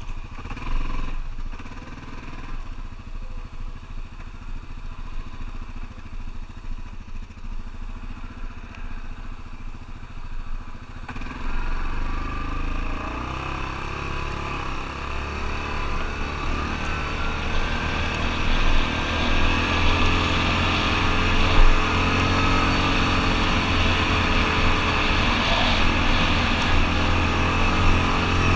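ATV engine running steadily, growing louder and fuller about eleven seconds in and rising slowly in loudness after that.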